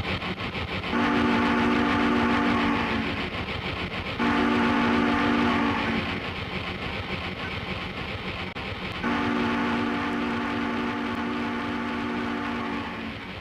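A train horn sound effect blows three times, two blasts of about two seconds and then a longer one of about four seconds. Under it runs a fast, steady rattle of the train moving.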